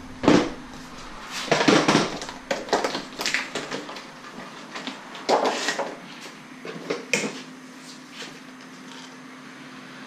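PVC pipe and fittings and a rubber rod holder being picked up and handled, knocking and rattling irregularly against each other and the bench. The knocks are sharpest in the first half and die down to light handling near the end.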